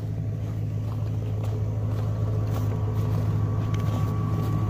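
Greenworks 24V cordless air compressor running steadily while inflating a truck tire, a constant low motor-and-pump hum that grows slightly louder toward the end.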